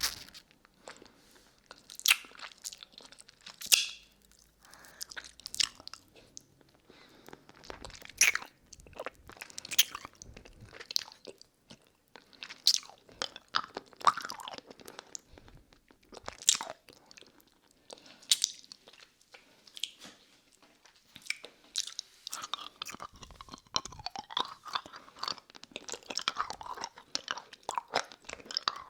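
Close-miked mouth sounds on a hard lollipop: wet sucking and licking with irregular sharp clicks and pops, coming thicker and wetter in the last several seconds.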